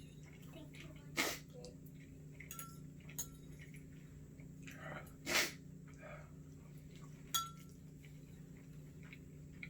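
Three short, sharp bursts of a man's breath through the nose and mouth, about a second, five seconds and seven seconds in, the middle one loudest: his reaction to the burn of extremely spicy instant noodles. A few faint clinks are heard between them.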